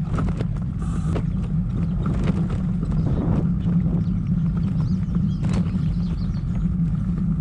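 Loaded Trek 1120 touring bicycle being ridden along a rough trail: a steady low rumble of tyres and wind on the mic, with scattered clicks and rattles from the bike and its bags.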